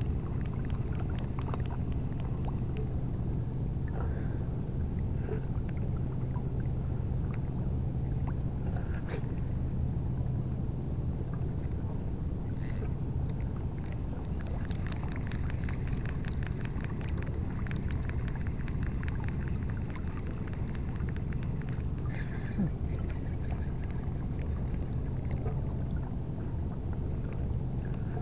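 Steady low drone of an engine running. Over it comes the light, rapid, even clicking of a small spinning reel being cranked on the retrieve, clearest about halfway through.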